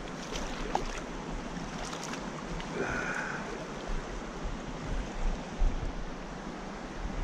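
Shallow rocky trout creek flowing, a steady rush of water over stones, with a short high-pitched tone about three seconds in.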